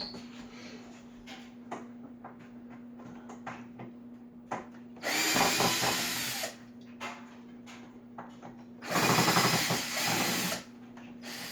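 Power drill backing out drywall screws from a wooden frame, in two runs of about a second and a half each, one about five seconds in and one about nine seconds in.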